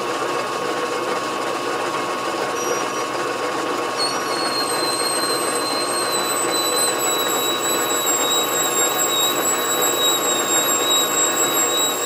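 Small metal lathe running in low gear while a die is turned onto a quarter-inch brass rod to cut threads: a steady motor and gear hum. A thin high whine joins about four seconds in and holds, sinking slightly in pitch.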